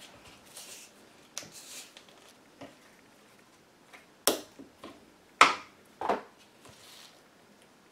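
A spring clamp being worked open and taken off the rim of a bodhran frame, giving a few sharp clicks. The loudest come about four and five and a half seconds in. Between them are soft rustles of the rubber inner-tube band being handled.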